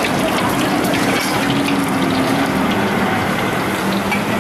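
Food frying in a wok over a gas burner: a steady sizzling hiss.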